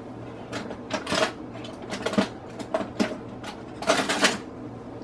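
Kitchen items being handled and rummaged: a few irregular clattering, rustling bursts, the longest near the end.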